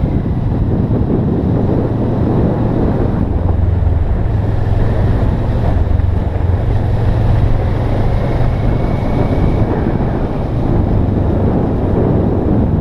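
Heavy wind rush on the microphone of a camera riding a moving motorcycle, over the motorcycle engine's low, steady drone.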